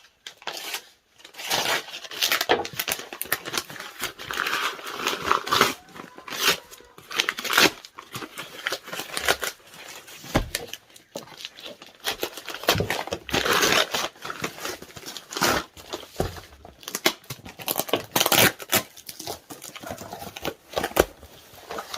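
A parcel's wrapping being torn open and crinkled by hand, in irregular rips and rustles with short pauses between them.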